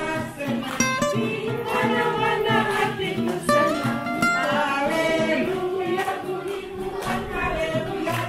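Music: a song with singing and guitar, a group singing along, with hands clapping in time here and there.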